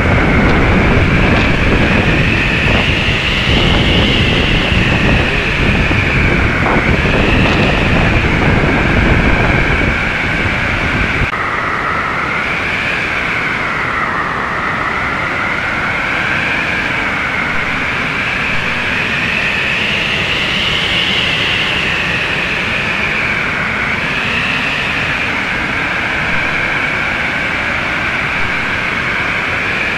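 Storm wind during a tornado outbreak: a high whistle that slowly wavers up and down in pitch over a steady rushing roar. For the first ten seconds or so heavy wind buffets the microphone, then it eases.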